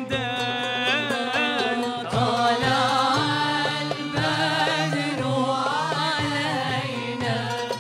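Moroccan Sufi devotional chanting (madih): melismatic singing with wavering vibrato over a steady low accompaniment.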